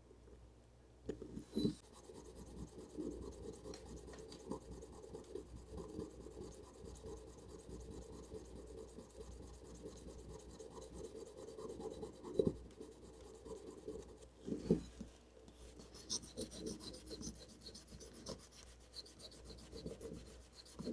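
Rubbing and filing as flashing is cleaned off a cast model locomotive shell, with a few light knocks of the part on the bench.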